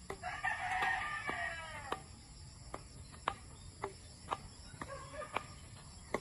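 A rooster crows once, a long call of about two seconds near the start. After it comes a string of sharp clicks about twice a second.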